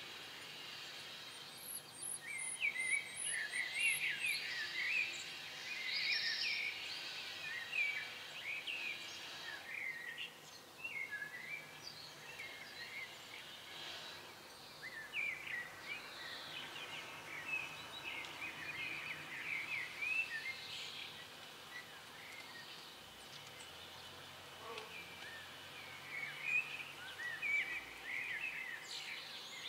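Small birds chirping and twittering in repeated bursts over faint background noise.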